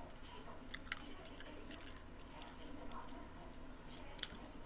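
Close-up chewing and mouth noises of a person eating, with small wet clicks and two sharper clicks, one about a second in and one near the end.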